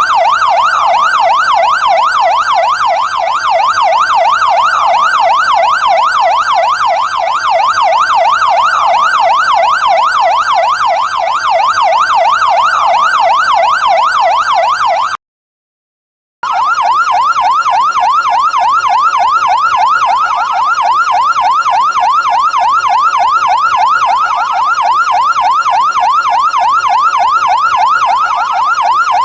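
Fire truck siren in a fast yelp, its pitch sweeping rapidly up and down several times a second. It cuts off about halfway through, and after a second of silence starts again in the same pattern.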